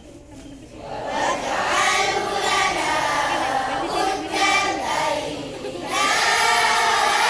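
A large group of voices chanting together in unison, starting about a second in, briefly dropping away and coming back louder near the end.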